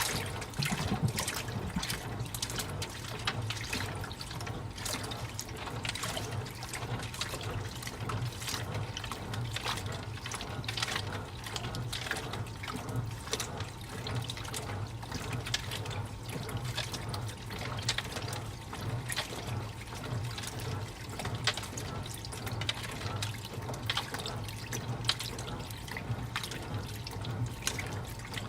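AQUA MCW-C70 coin-operated 7 kg washing machine on its rinse cycle: water running and sloshing in the drum in a dense, irregular splashing, over a steady low hum.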